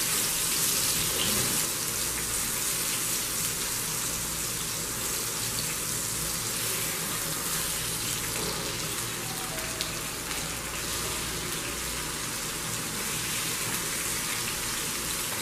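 Chicken chapli kababs shallow-frying in oil on a flat tawa griddle: a steady sizzle.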